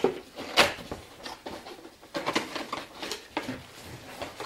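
Cardboard box being opened by hand: tape and flaps pulled and the box handled, giving irregular scraping, rustling and sharp cardboard knocks, the loudest about half a second in.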